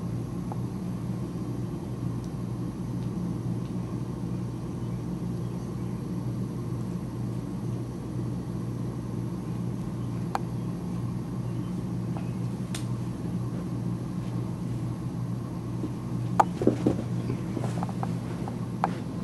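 Steady low droning hum, with a few sharp clicks and a short cluster of knocks near the end.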